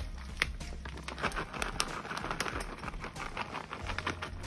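Plastic bag of shredded cheese crinkling as it is shaken out, with many small crackles and light pattering of cheese shreds, over a steady low hum.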